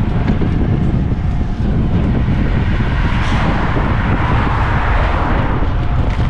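Wind rumbling on the microphone of a camera riding along on a bicycle, with road noise, and a louder rushing swell that builds about halfway through and eases near the end.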